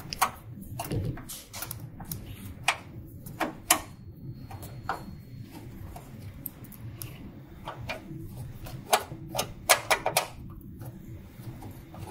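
Screwdriver clicking and scraping against the screws of a UV printer's sheet-metal carriage cover as they are loosened: scattered sharp clicks, with a quicker run of them about three quarters of the way in, over a low steady hum.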